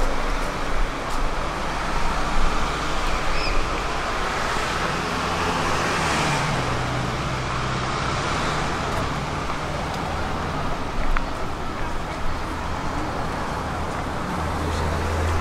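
Street traffic with a motor vehicle passing: a low engine hum and tyre noise swell to a peak about six seconds in, then fade back into the steady traffic hum.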